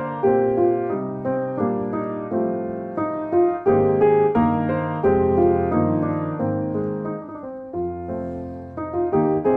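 Background solo piano music, a steady run of struck notes that ring and fade.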